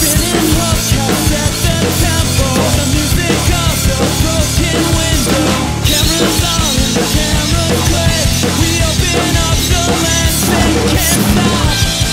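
Drum kit played along to a post-hardcore rock song with singing, the drums and the recorded band sounding together.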